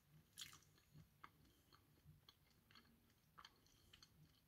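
Faint chewing of a caramel-filled chocolate, heard as a scatter of soft mouth clicks and smacks.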